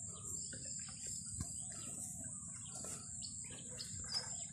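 Outdoor rural ambience: a steady high insect trill, likely crickets, with a few short bird chirps near the end. Faint scattered knocks and rustles come from plastic eel-trap tubes and a mesh bag being handled.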